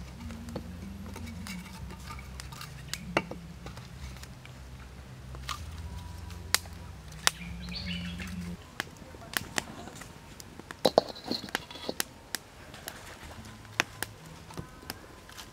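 Split firewood sticks knocking and clicking as they are laid and pushed into a small cooking fire, with scattered sharp cracks and a loud cluster about two-thirds of the way through. A low steady rumble runs under the first half and stops about halfway, and a few birds chirp faintly.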